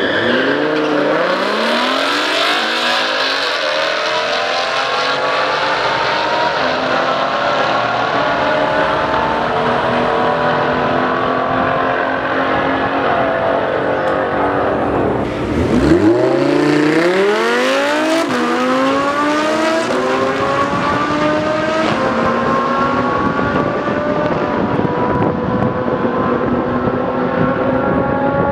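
Two drag-racing cars, one a Lamborghini Huracán V10, launching hard and revving up through the gears with quick upshifts, the engine pitch climbing and dropping back at each shift. About 16 s in, a second launch starts from low revs and climbs through the gears again.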